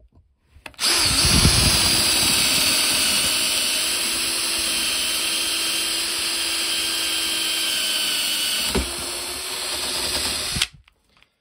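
Bauer 20V cordless right-angle drill driving a 7/16 in. spade bit through a treated 2x4 under heavy downward pressure: the motor starts just under a second in and runs steadily without stalling, its pitch sagging slightly under the load. A short knock comes about nine seconds in, and the motor cuts off suddenly shortly before the end.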